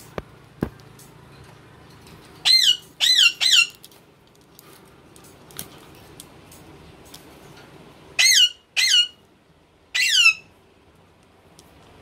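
Indian ringneck parakeet calling: three quick, high-pitched squawks, each rising and then falling in pitch, about two and a half seconds in, then three more about eight seconds in. A couple of sharp clicks come near the start.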